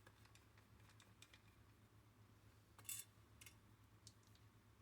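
Near silence with a few faint, light clicks, the clearest one about three seconds in.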